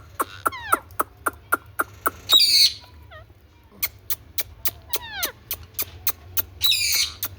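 Indian ringneck parakeet calling: quick runs of sharp, high chirps about four a second, with a few falling whistled notes, broken twice by a loud harsh screech.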